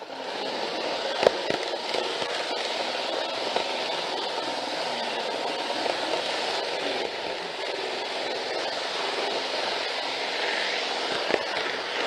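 Model train running along its track, heard from a camera riding on it: a steady rushing rattle of wheels and motor, with a sharp click about a second in and another near the end.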